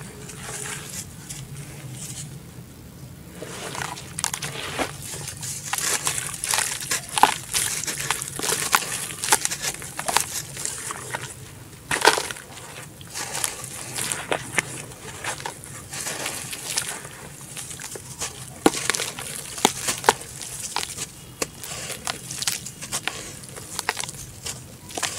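Hands crushing and crumbling soaked red dirt blocks in a basin of muddy water: irregular gritty crunching and crackling mixed with wet sloshing, with a short lull about two seconds in.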